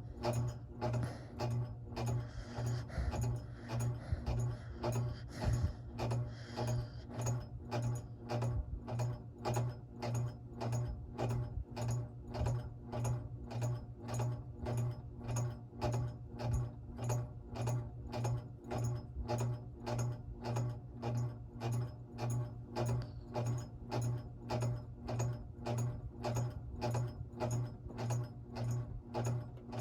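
Snoring in a fast, very even rhythm, each breath a low rasping pulse that repeats steadily.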